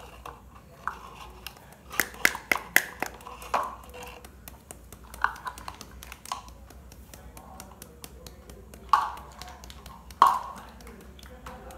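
Hand tapping a stainless-steel mesh sieve held over a bowl to sift cocoa powder: irregular light metallic taps and clicks, with two louder knocks near the end.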